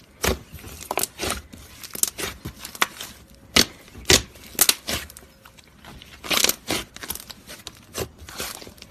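Fluffy slime being squished and stretched by hand, giving irregular sharp pops and clicks as air pockets burst.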